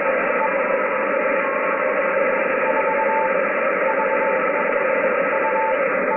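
HF radio receiver hissing with band static, with a faint Morse code tone keying in and out of the noise in short dots and dashes from about two and a half seconds in.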